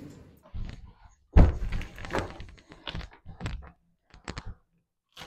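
Thumps and knocks of a large box being handled and shifted into place, the loudest about one and a half seconds in, followed by a few light clicks.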